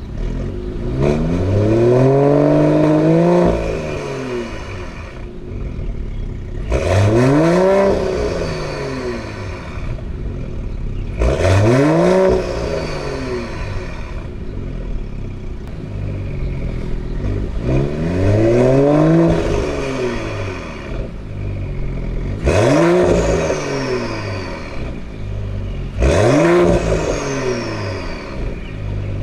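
Mercedes-AMG CLS53's turbocharged inline-six revved six times through an Innotech iPE valved exhaust. Each rev rises and falls over about two seconds, and the engine settles back to idle between revs.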